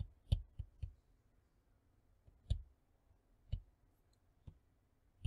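Faint, sharp clicks of a stylus tapping a tablet screen during handwriting: four quick clicks in the first second, then single clicks about a second apart.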